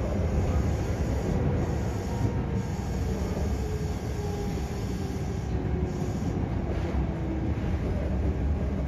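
Electric commuter train heard from inside the car: a steady low rumble of the wheels on the rails, with a faint whine slowly falling in pitch as the train slows to enter a station.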